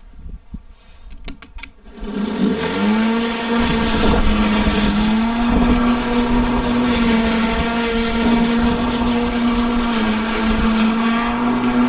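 Ozito PXC 36V cordless lawn mower's electric motor and blade starting about two seconds in, after a few clicks, with a quickly rising whine. It then runs steadily at one pitch.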